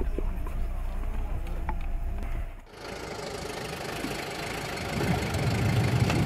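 A low steady rumble with a few faint clicks, then a cut about two and a half seconds in to a broad hiss over the running engine of a Panhard VBL armoured car. The engine's low rumble grows louder near the end.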